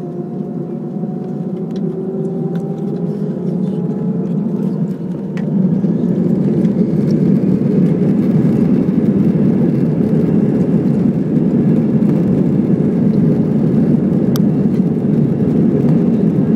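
Airliner jet engines spooling up for take-off: a rising whine over the first few seconds. About five seconds in, the engine noise jumps to a steady, loud take-off thrust level.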